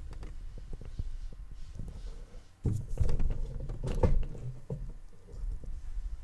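Handling noise from the camera being moved: low rumbling bumps and scattered knocks, the loudest thumps about 3 and 4 seconds in.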